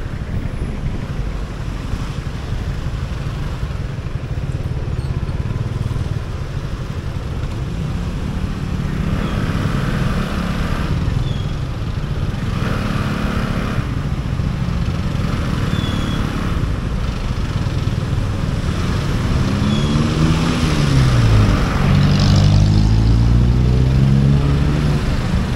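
Motorcycle riding in city traffic: steady engine and road noise. About three-quarters of the way through, an engine's pitch drops and then climbs again as it slows and accelerates, growing louder.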